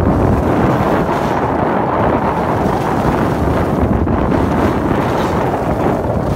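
Wind buffeting the microphone of a phone carried by a skier going fast downhill: a loud, steady rushing noise.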